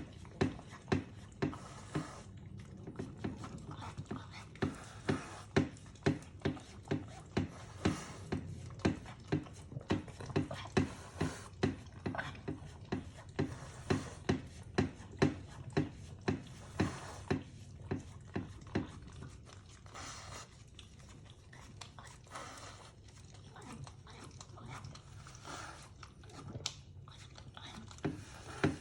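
French bulldog licking a dish, with quick rhythmic licks about two to three a second. The licks thin out to a few scattered ones in the later part.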